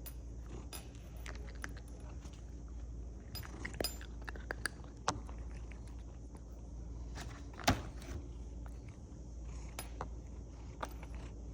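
Maine Coon cat eating dry crunchy treats: irregular crisp clicks and crunches, with one sharper snap about three-quarters of the way through.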